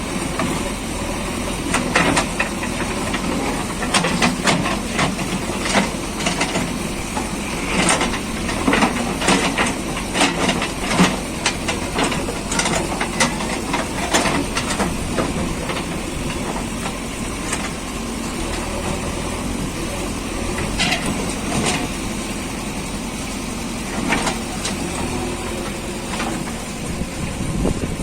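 JCB 3DX backhoe loader's diesel engine running steadily while working, with frequent knocks and clatters over it, thickest between about four and fifteen seconds in.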